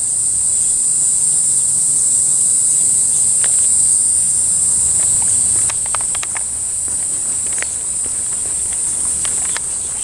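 A loud, steady, high-pitched chorus of cicadas buzzing in summer trees. From about halfway in, scattered light footsteps on pavement.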